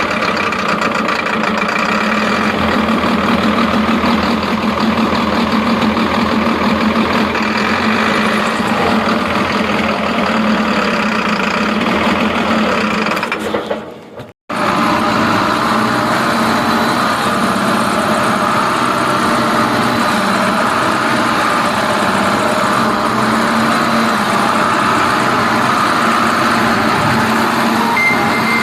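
Isuzu 4HK1 four-cylinder diesel engine running steadily with an abnormal noise, in an engine that is also blowing white smoke. The sound cuts out briefly about halfway through, then carries on.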